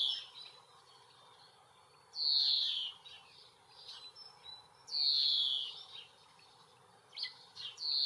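European greenfinch calling: a drawn-out falling note repeated three times, about every three seconds, with a few faint short notes in between.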